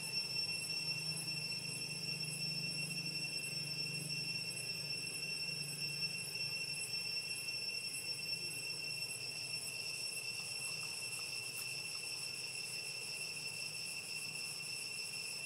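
Insects droning steadily in the forest, a continuous high-pitched whine, with a faster pulsing insect call coming in at the top about ten seconds in, over a faint low hum.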